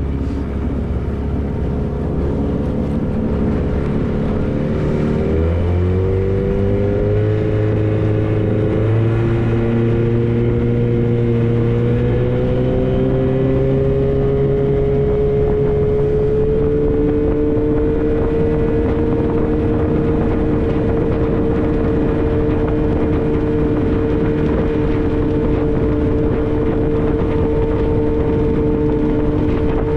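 Outboard motor of a small skiff running under way, its pitch climbing in steps over the first fifteen seconds or so as the boat speeds up, then holding steady.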